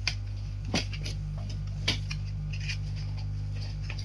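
Three light, sharp clicks and taps from computer parts and their packaging being handled, over a steady low hum.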